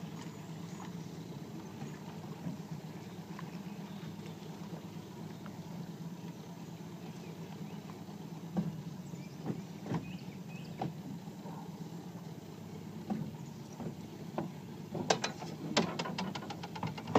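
Hands tying a trotline lead of string onto a branch from a boat: scattered small clicks and rustles over a steady low hum, with a quick run of sharp ticks near the end.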